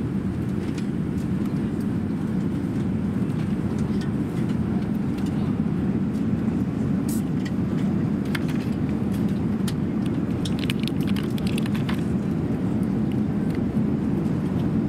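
Steady low cabin drone of an Airbus A380 in cruise flight, with scattered light clicks and crinkles of plastic food packaging being handled on the tray table, most of them past the middle.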